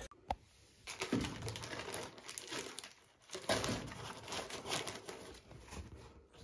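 Crinkling and rustling of a box of disposable face masks and its plastic wrapping as a mask is pulled out, in uneven bursts. There is a sharp click just after the start.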